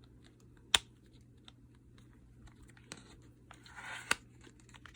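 Plastic-wrapped cosmetic palette packaging being handled: scattered light taps and sharp clicks, one loud click under a second in, with a short rustle of plastic wrap just before four seconds and another click right after it.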